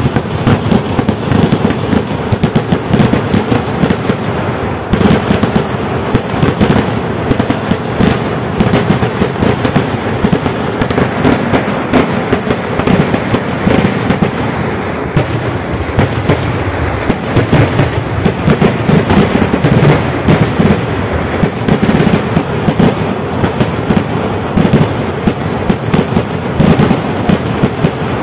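Kerala vedikkettu fireworks going off in a dense, unbroken barrage, bangs following one another too fast to count.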